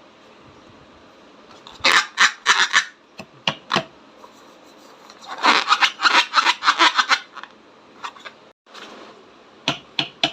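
Slime being squished and mixed by hand, giving bursts of rapid wet crackles and pops in four spurts, the longest about two seconds, over a steady low hiss.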